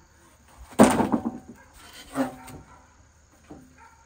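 Poplar edging strip knocking and clattering against a steel sawmill bed as it is handled: one loud clatter of quick knocks about a second in, then a few lighter knocks.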